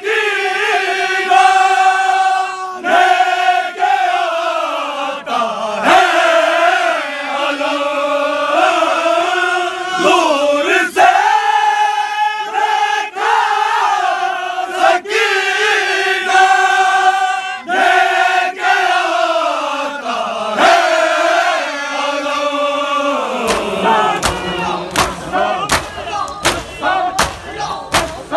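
A group of men chanting a noha in unison, long held notes with a slowly wavering melody. About five seconds before the end the chant breaks off into rhythmic matam, sharp hand slaps on the chest at about two a second.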